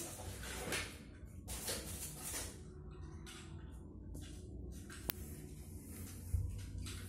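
Scattered rustles, soft knocks and a sharp click of small plastic toys being handled by a toddler, with a thump near the end.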